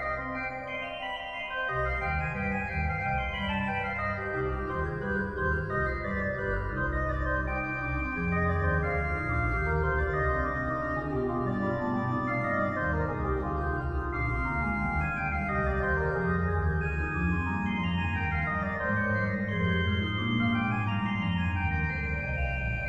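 Instrumental background music: held chords over a steady bass, with quick runs of notes stepping down and up.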